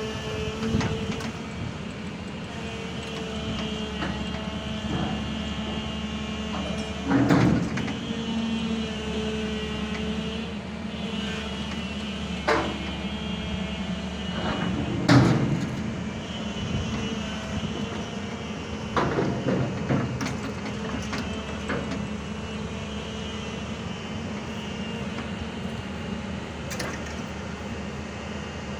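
Heavy excavator's diesel engine running steadily, with several loud clanks and bangs at irregular intervals as the machine is loaded. The loudest bang comes about halfway through, and a cluster of knocks follows a few seconds later.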